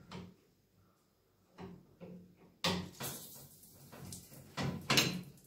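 Metal wrench and brass pipe fittings clinking and scraping as the Y-strainer on a gas boiler's water supply is loosened. There are a few separate knocks, the loudest about halfway through and again near the end.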